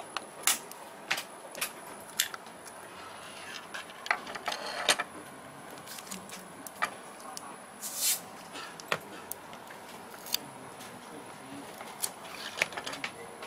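Scattered clicks and taps of plastic housing and circuit board parts being handled and pried apart while a small handheld device is disassembled, with a longer scrape about eight seconds in and a quick run of clicks near the end.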